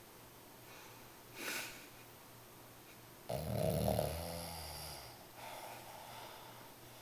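French bulldog snoring: a short breath about a second and a half in, then a loud snore that starts suddenly near the middle and fades away, followed by a softer breath. Between them are silent pauses, which the owner says are moments when she is not breathing at all.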